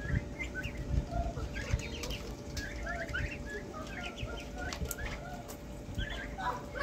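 Muscovy ducklings and young turkeys peeping while they feed: many short, high, upward-sweeping chirps, several a second, overlapping from different birds.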